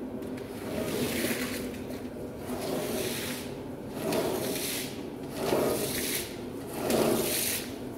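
Long-handled brush scrubbing a wet, soap-foamed rug in repeated swishing strokes, about one every second and a half.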